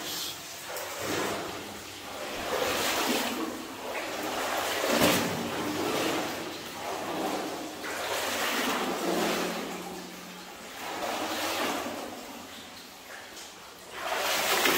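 Water sloshing and splashing around a person wading through a flooded mine tunnel, coming in uneven surges about every one to two seconds as the legs push through the water.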